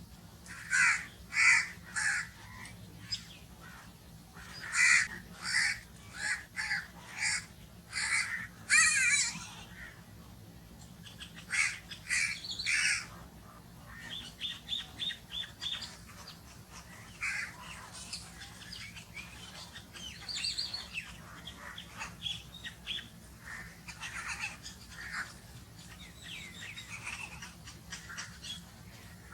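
Crows cawing: several bursts of two to five harsh caws, then near the middle a fast run of short clicking notes, followed by quieter, scattered calls.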